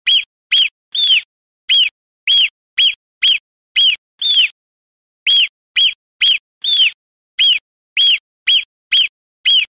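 Marmot alarm calls: short, sharp whistled chirps repeated about twice a second, each rising and then dropping in pitch, with a brief pause about halfway through.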